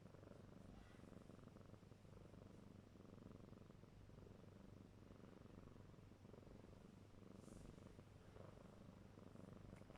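A four-month-old kitten purring faintly and steadily.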